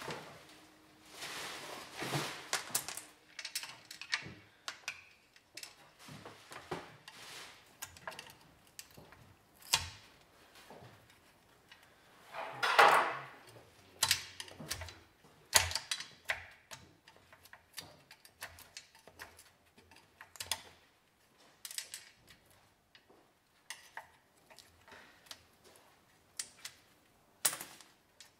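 Metal tyre lever clicking and scraping against the wheel rim as a stiff-sidewalled tyre's bead is pried over the rim by hand. The clinks and knocks are irregular, with one louder scrape about halfway through.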